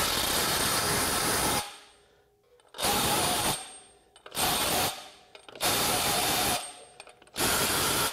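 Makita cordless impact wrench hammering in five short bursts of about a second each, with brief pauses between. It is driving a chrome 12-point socket in the tightening direction on an already-torqued lug nut, and the hideous, harsh sound is the socket slipping and rounding off the nut.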